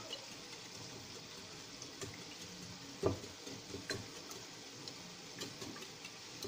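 Wire whisk beating eggs in a ceramic bowl: soft liquid swishing with light clicks of the wires against the bowl, and one louder knock about three seconds in.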